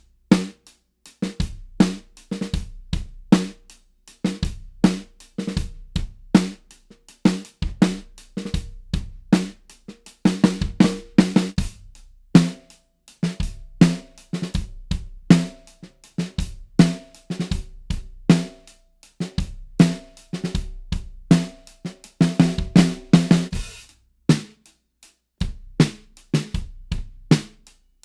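An 8-inch maple snare drum played in a steady groove on a drum kit, with bass drum and cymbal strokes among the snare hits. The playing breaks off briefly near the end, then resumes.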